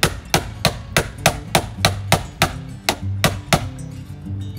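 A mallet striking a hand-held hammer-activated impact driver set in a rusty ferrous screw in teak hull planking, about a dozen sharp blows at an even three or so a second to break the screw loose; the blows stop near the end. Faint background music underneath.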